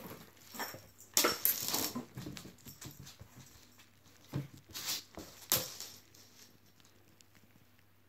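A Maine Coon cat's paws landing and scrabbling on a wooden floor as it leaps and pounces at a fishing-pole toy. There are several sharp knocks, the loudest about a second in and a few more around five seconds in, with lighter scratchy clicks between.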